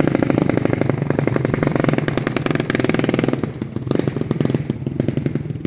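1986 Honda ATC350X's 350 cc single-cylinder four-stroke engine running with an open exhaust, no muffler fitted, just after a top-end rebuild. It runs loud and fast at first, then drops to a lower, more uneven beat about three seconds in as the throttle comes off.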